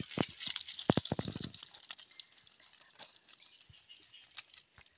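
Freshly caught fish flapping in a mesh net trap on leaf litter, wet slaps and taps. A quick flurry comes about a second in, then the taps turn sparse and faint.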